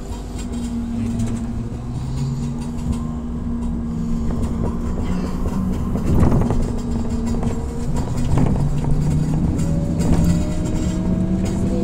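BKM 321 trolleybus heard from inside the cabin while under way: a steady electric traction-motor whine that rises in pitch over the last few seconds as it speeds up. A couple of knocks and rattles from the body over the road are heard about midway.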